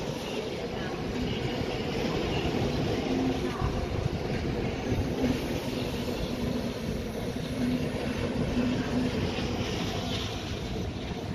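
ČD class 362 electric locomotive standing with its passenger train at a station platform: a steady low rumble with a faint hum that comes and goes.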